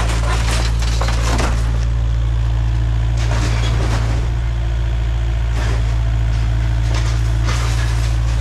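Kubota KX057-5 mini excavator's diesel engine running with a steady drone, with several bursts of crunching and cracking as its bucket and thumb tear into the old minibus body.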